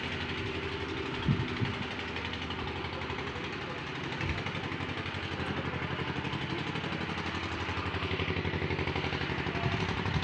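A small engine runs steadily with an even, rapid pulsing beat. It gets a little louder about four seconds in.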